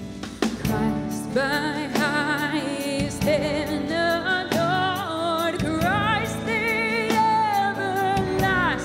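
Live worship band playing: a woman sings a slow melody with vibrato, coming in about a second and a half in, over a Yamaha Montage 8 keyboard, guitars, bass and drums.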